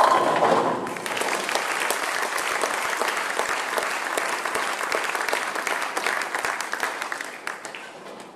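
Bowling ball crashing into the pins for a strike, followed at once by the audience applauding for several seconds, the clapping fading near the end.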